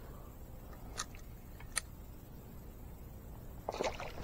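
Two faint clicks, then a short splash near the end as the cast ledger rig, a sliding 20-gram lead with worms, lands in the water.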